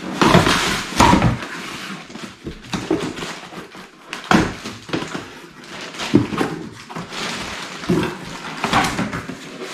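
Cardboard box flaps and inner packaging being pulled open and handled: irregular knocks and scraping rustles of cardboard, a few sharper thumps among them.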